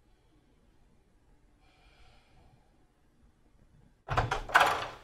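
Near-silent room tone, then a little after four seconds in a room door is opened abruptly: a short, loud cluster of knocks and rattles lasting about a second.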